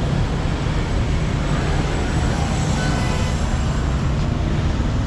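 Street traffic passing: motorbikes and cars making a steady road noise.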